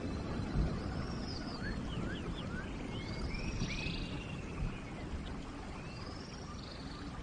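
Steady rain in a forest with birds calling over it: three arched whistled notes spaced a few seconds apart, and a quick run of short rising chirps in the first seconds.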